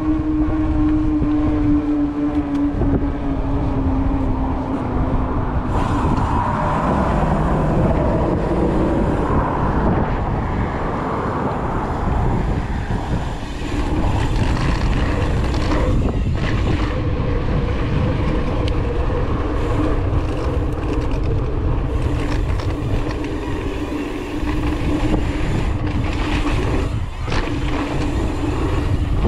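Mountain bike ride along a road: steady wind rush on the helmet or bike camera's microphone and tyre noise, with a pitched hum that slowly falls over the first several seconds and returns steadier later on.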